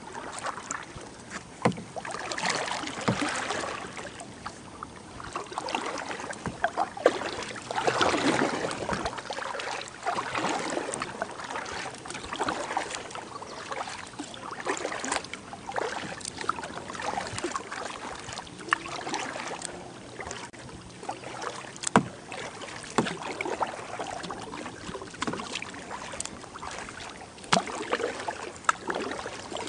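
Kayak paddling: the paddle blades dip and splash in calm river water every couple of seconds, with dripping between strokes. A few sharp knocks stand out, the loudest about 7 and 22 seconds in.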